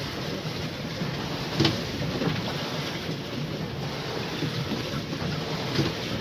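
Wind buffeting the microphone over water rushing past a small sailboat's hull as it sails fast and heeled, with spray hissing. A sharper splash hits about a second and a half in and again near the end.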